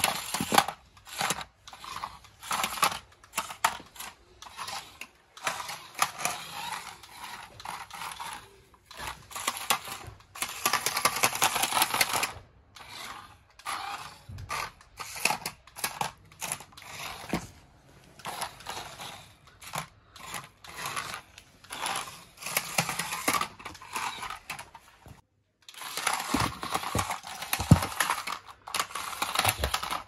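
Toy RC stunt car's small electric motors whirring in short stop-start bursts as it drives, spins and flips over a hard stone floor, with its plastic body and wheels knocking and clattering now and then.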